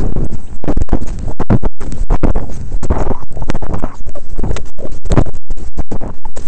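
Loud, uneven rumbling and scraping of wind buffeting a camera microphone while walking across snow, with many brief cut-outs in the sound.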